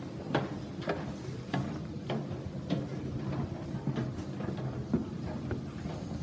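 Footsteps going down metal stairs with checker-plate treads, each footfall a short knock, a little under two steps a second, over a steady low background hum.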